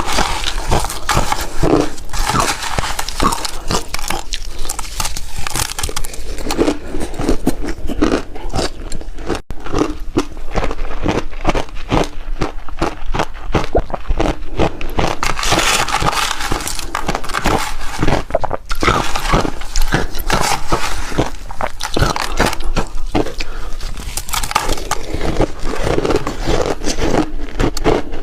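Refrozen shaved ice being bitten and chewed close to the microphone: a continuous run of sharp, crackling crunches, with a brief dip about nine and a half seconds in.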